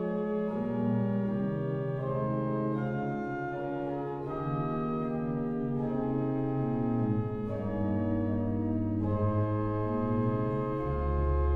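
Pipe organ playing slow, sustained chords that change every second or two, with a deep bass note coming in near the end.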